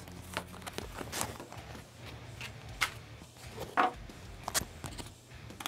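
Hobby knife cutting a pre-cut part out of a sheet of PP foam board, the foam giving a series of separate crackles and snaps, a few of them sharper than the rest.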